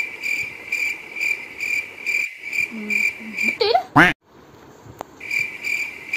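A cricket chirping: a steady high trill pulsing about twice a second. It breaks off about three and a half seconds in and resumes about five seconds in, with a short sharp sound in the gap.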